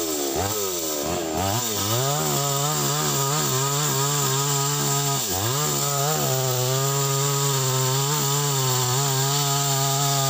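Two-stroke chainsaw cutting into a standing tree trunk while felling it. The engine pitch dips sharply and picks back up several times in the first two seconds and again about five seconds in; otherwise the saw runs steadily at high revs.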